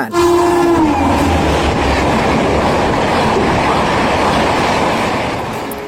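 Train sound effect: a horn-like tone that slides down in pitch over the first second, then the steady rushing and rumble of a passing train, fading near the end.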